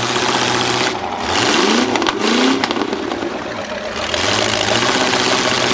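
Demolition derby cars' engines, big old V8s, running hard and revving, the pitch swooping up and down as the drivers gun them between hits.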